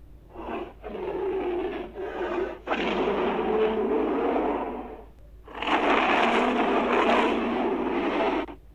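Raspy creature growl-hisses made as fictional Komodo dragon sound effects: a few short rasps, then two long drawn-out ones, the last about three seconds long.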